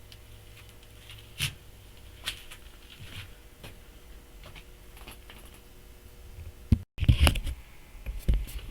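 Scattered light clicks and knocks of parts and tools being handled on a cluttered bench. Near the end, after a brief dropout, come several louder clunks.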